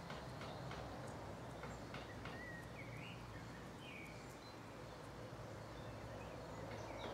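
Quiet outdoor ambience: a steady low hum under soft scattered clicks and rustles, with a few short high chirps about halfway through.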